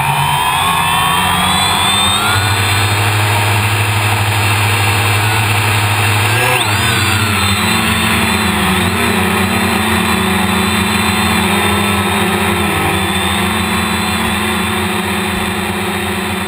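Gaui 330X quadcopter's electric motors and propellers running, heard from its onboard camera. The motors spin up at the start, and their pitch shifts about six and a half seconds in as the craft throttles up and lifts off.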